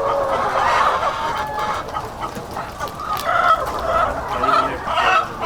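A flock of laying hens clucking and calling, many short calls overlapping and repeating.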